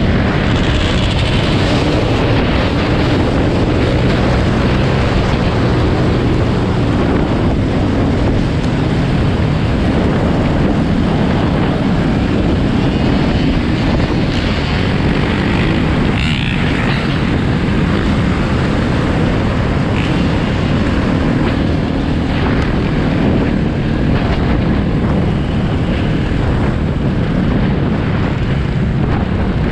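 Dirt bike engine running steadily at cruising speed, with wind rushing over the microphone and the engines of other dirt bikes and quads riding close by.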